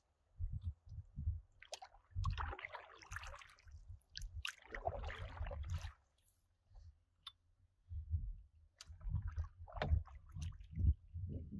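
Canoe paddles dipping and pulling through calm river water, with two stretches of splashing and dripping as blades stroke and lift out. Dull low thumps come and go throughout.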